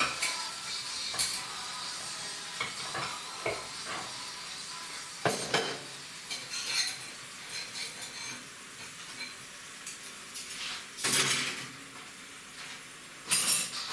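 Ceramic plates and bowls clinking and clattering as they are stacked and moved on a kitchen counter. There are louder knocks about five seconds in and a longer clatter around eleven seconds.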